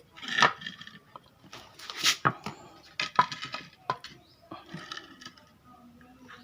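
Cut wooden boards knocking and clattering as they are handled and laid against each other, in a scatter of irregular sharp knocks.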